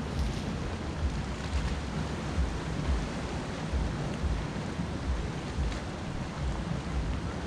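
Wind buffeting the microphone in uneven low rumbles over the steady wash of sea waves against a rocky shore.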